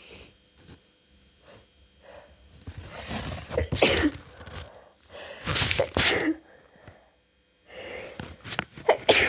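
A person sneezing three times in a row during a cold, each sneeze preceded by a building in-breath.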